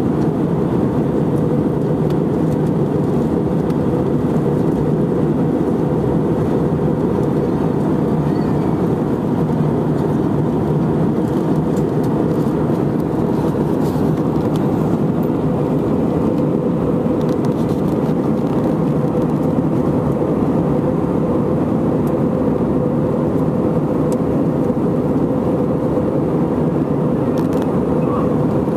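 Steady cabin noise inside an Airbus A319 airliner in flight: an even engine and airflow roar with a steady mid-pitched tone running through it.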